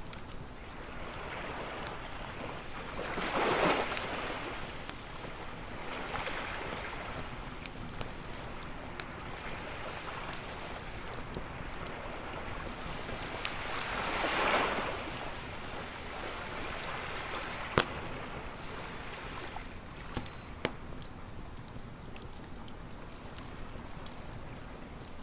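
Ocean waves washing onto a beach over a steady hiss, with two swells about ten seconds apart. Sharp pops and crackles of a wood campfire come now and then, the loudest pop about three quarters of the way in.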